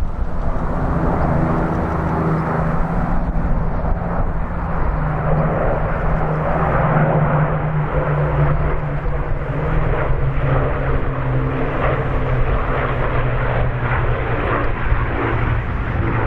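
Piston aero engines of Second World War propeller aircraft droning steadily in flight, holding an even pitch.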